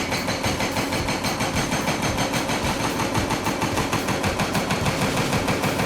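Heavy machinery running with a rapid, even hammering of about eight to ten blows a second.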